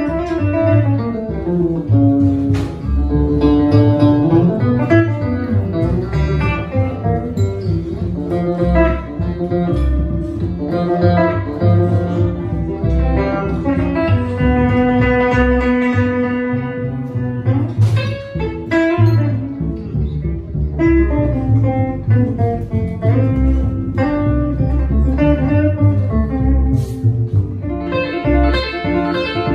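Live music from a hollow-body electric guitar played over a plucked upright double bass, a steady rhythmic bass line under the guitar's notes.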